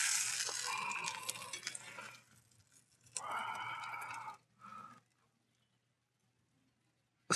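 Bacon fat sizzling in a cast-iron skillet for about two seconds, fading away. Then a short pitched sound of about a second, and the sound cuts out to silence for the last two seconds.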